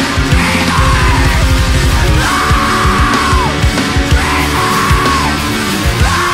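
Loud, aggressive heavy rock band recording: fast pounding drums under dense guitars, with yelled vocal phrases about every two seconds.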